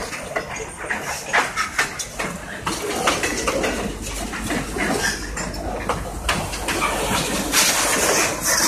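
Freight train cars rolling past, with steel wheels clattering and irregular metallic clanks and bangs over a continuous rumble.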